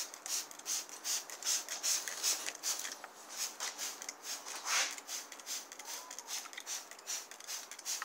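Damp cloth towel rubbing and rustling close up as it is handled and spread, a quick run of soft brushing strokes that thins out after about three seconds.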